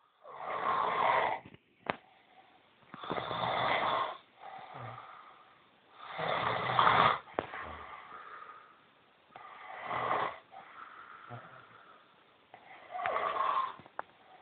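Loud snoring: five long snores about three seconds apart, with quieter breaths between them.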